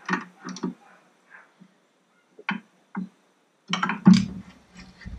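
Sparse plucked guitar notes: background music, with a quiet gap about a second in and a denser run of notes near the end.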